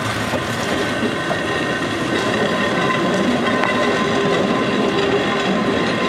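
A pair of Kurobe Gorge Railway EDR-type electric locomotives runs past on the narrow-gauge track. Their wheels clatter over the rails in a steady rumble, with a thin steady whine above it.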